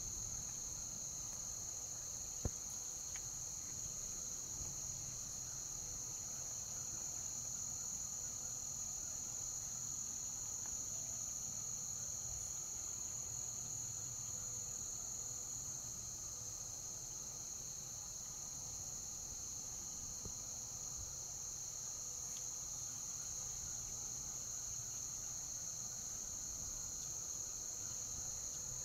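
Steady chorus of insects, a continuous high-pitched trill, with a single sharp click about two and a half seconds in.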